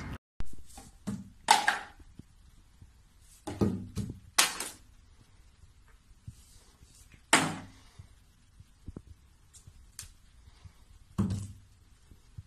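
Plastic toiletry bottles being knocked over by a cat onto a tiled shelf: several separate thunks and clatters, spread out with quiet between them.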